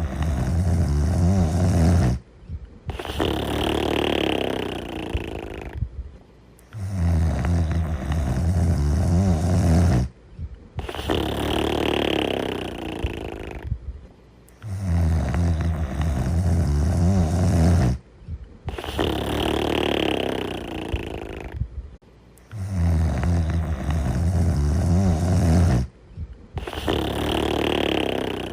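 Loud snoring in a slow, even rhythm of about one breath every eight seconds: each breath is a low, rattling snore of about two seconds, then after a short pause a longer, breathier sound.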